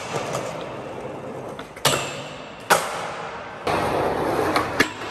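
Skateboard wheels rolling on a concrete garage floor, echoing. Near the middle come two sharp clacks of the board less than a second apart, and then the rolling picks up again.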